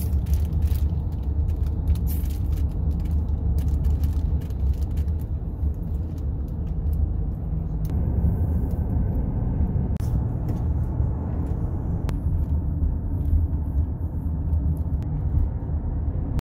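Steady low rumble of a car in motion, engine and road noise, with scattered light clicks, most of them in the first few seconds.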